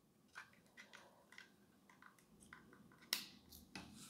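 A few light plastic clicks and faint handling sounds, the sharpest about three seconds in: cable plugs being pushed into the sockets of a 70mai Dash Cam Pro Plus.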